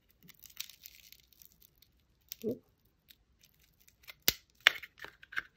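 Faint rustling of a ribbon spool's plastic wrapping, then a sharp click about four seconds in and a few quick snips of scissors cutting into the packaging.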